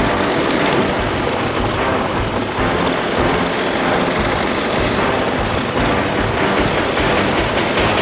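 Motorcycle engine running steadily under loud, even wind rush while riding.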